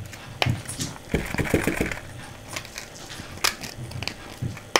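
A spring-handled metal mesh tea-ball infuser being worked by hand, clicking and rattling with wet, soapy diamond-painting drills inside. A quick run of clicks with a short hiss comes about a second in, and a sharp click comes near the end.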